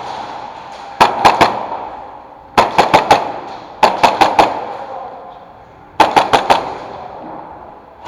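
Airsoft gun firing in four short bursts of three to five rapid shots each, close by and loud.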